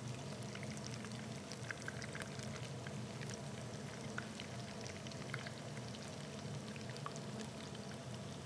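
Minced meat and mint patties frying in oil in a pan: a faint steady sizzle with scattered small pops and crackles over a low steady hum. The patties are not yet cooked through.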